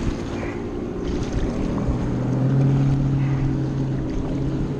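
Outboard motors of nearby boats running steadily, their low engine tone growing louder about two seconds in.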